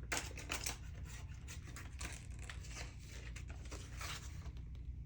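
Paper banknotes and envelopes being handled: a run of short rustles and rubs of paper.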